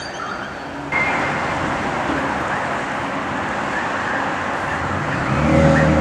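Bird calls for about the first second, then steady road-traffic noise cuts in abruptly. A motor vehicle's low engine hum grows louder near the end.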